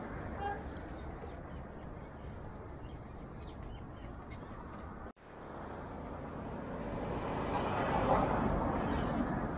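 Steady outdoor background noise with no clear single source; it drops out abruptly at a cut about five seconds in, then returns and swells louder as a broad hiss near the end.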